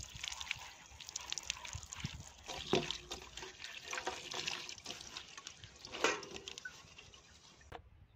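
Water poured from a small steel bowl, trickling and splashing over a head of cauliflower being washed by hand, then over green chillies being rubbed in a steel plate of water. Two louder knocks stand out, about three and six seconds in.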